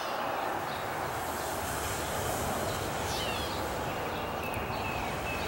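Steady rushing of breath blown through a collapsible fire blowing tube onto hot coals and birch-bark tinder, fanning the leftover coals back into flame.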